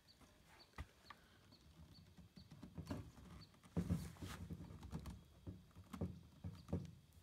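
PVC elbow being pushed and twisted onto a freshly glued PVC pipe joint: irregular plastic knocks and scraping, loudest about four seconds in, as the fitting is rotated into line before the solvent cement sets.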